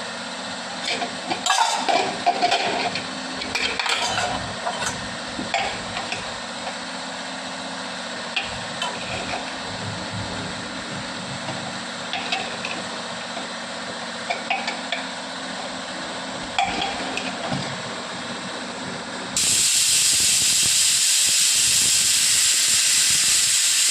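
Metal kitchen utensils clinking and clattering over a steady low hum. About nineteen seconds in, a loud, even hiss starts suddenly and keeps going.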